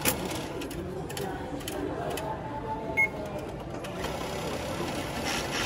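Station ticket and IC-card charge machine whirring as it takes in the banknote and pays out change, with one short electronic beep about three seconds in.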